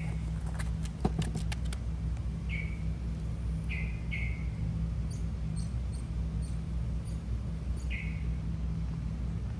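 Four short, high chirps from a small animal, spaced irregularly over a steady low hum, with a few sharp clicks in the first couple of seconds.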